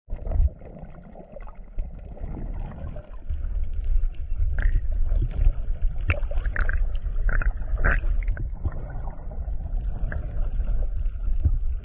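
Water rushing and gurgling around the microphone, a dense low rumble that grows louder about four seconds in, with a few short higher-pitched sounds in the middle.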